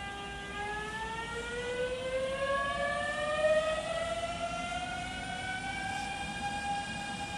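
Electric multiple unit pulling away, its traction motors giving a whine of several tones that rises steadily in pitch as the train gathers speed, then levels off at a steady pitch about four seconds in, over a low rumble of the train.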